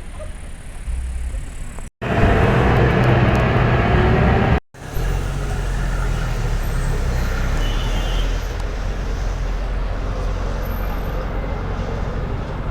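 Bus engine rumble and road traffic noise, in three clips cut together with brief dropouts between them. The middle clip, from about two to four and a half seconds in, is the loudest.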